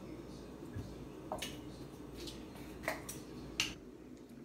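Eating sounds: about half a dozen short, soft clicks and smacks from chewing and handling food and a glass bottle at the table, over a steady low hum.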